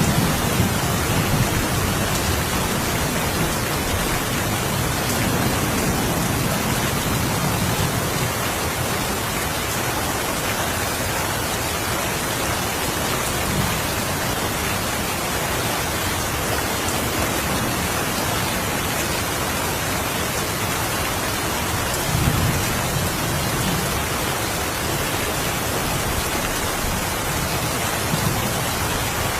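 Steady rain with low rolls of thunder, which swell near the start, a few seconds in and again about two-thirds of the way through.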